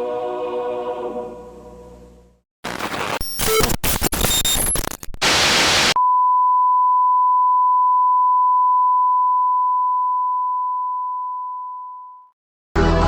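Music fades out, then a few seconds of harsh television static with crackles and dropouts cuts in. It gives way to a single steady test-tone beep that holds for about six seconds and fades away: a broadcast station's off-air tone after sign-off. Music starts again at the very end.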